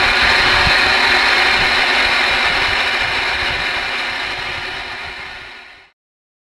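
CB radio receiver static: a steady hiss and crackle from the Galaxy DX2547 base station's speaker on the open channel. It fades away over the last few seconds and cuts off about six seconds in.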